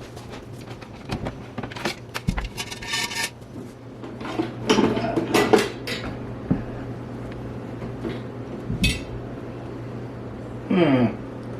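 Cast iron kettle and lid being handled: scattered knocks and clinks with stretches of scraping, over a steady low hum.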